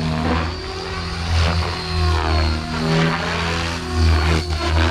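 Oxy5 electric RC helicopter flying aerobatics: its rotor blades whir with pitch rising and falling as it manoeuvres. It swells louder about three times as it passes and turns, over a faint steady high whine from the electric motor.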